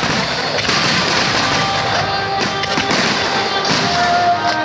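Aerial firework shells of a starmine barrage bursting in quick succession, with dense crackling throughout, over music playing along with the show.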